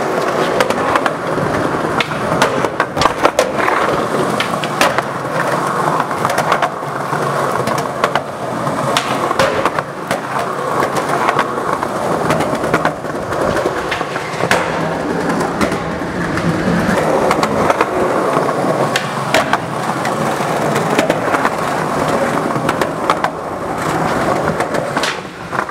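Skateboard wheels rolling and pushing along a concrete walkway: a steady, loud rolling rumble with many sharp clicks and clacks along the way.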